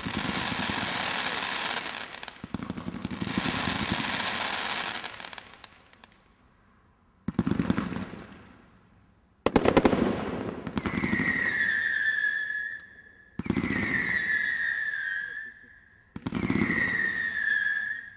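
Multi-shot firework cake (a 107-shot combination Roman candle) firing: two dense volleys of rapid shots, then a few single bursts including a sharp loud bang about nine and a half seconds in. Then three whistling tails go up, each a falling whistle of about two seconds.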